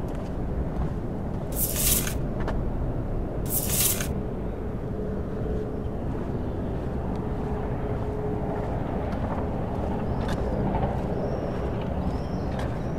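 Outdoor ambience on a walk: a steady low rumble, with two brief hissing scrapes a couple of seconds apart near the start. A faint steady hum runs through the middle, and a run of short, high chirps comes near the end.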